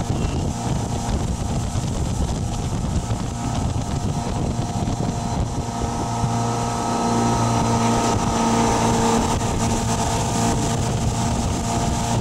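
Tow boat's engine running steadily under way, with wind rushing over the microphone; it grows a little louder about seven seconds in.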